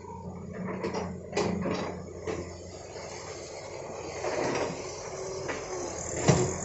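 Hitachi excavator running, its engine a steady low drone, with several sharp knocks and clanks; the loudest knock comes near the end.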